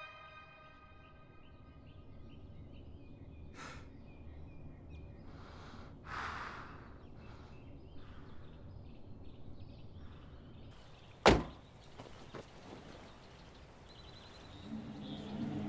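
Quiet film sound-design ambience with a low steady hum and a few soft swells of noise. About eleven seconds in comes a single sharp, loud knock, and low music tones rise near the end.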